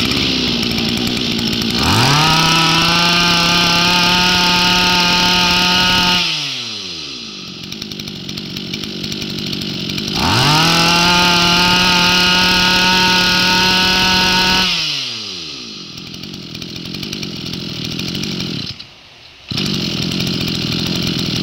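Ryobi 25cc two-stroke brush cutter engine pull-started and catching at once, then revved twice to high speed for about four seconds each time, winding back down to idle after each. Near the end it briefly cuts out, then runs again.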